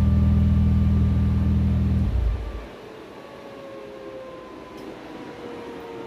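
A steady low mechanical drone from the bagged Audi S4 cuts off abruptly about two seconds in. Afterwards a couple of faint whines fall slowly in pitch.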